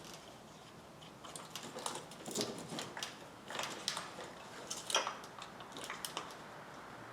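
Irregular light clicks and short rustles of small hard plastic and metal parts being handled and fitted by hand, typical of ignition coils going onto an engine.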